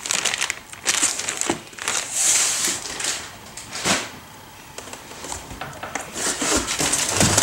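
Clear plastic packaging bag crinkling and rustling as a bagged, coiled gas hose is handled, in several bursts loudest about two to three seconds in, with a few sharp knocks.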